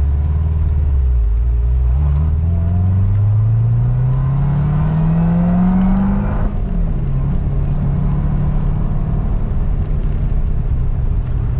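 Supercharged V8 of a 2016 Corvette Z06, heard from inside the cabin, pulling hard with its pitch rising steadily for about four seconds. About halfway through the pitch drops abruptly, and the engine then runs on evenly at a lower pitch.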